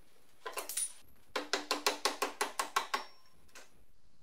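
Mallet hammering on the front suspension of a Mercedes W123: a few knocks, then a quick run of about a dozen blows, around seven a second, each with a short metallic ring, to knock the sway bar link loose.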